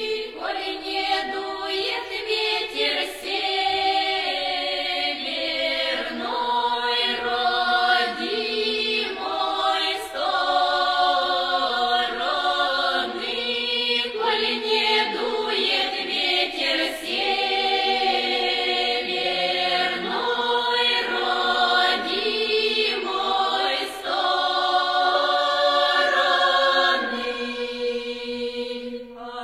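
Music with layered, choir-like singing voices holding and moving between notes.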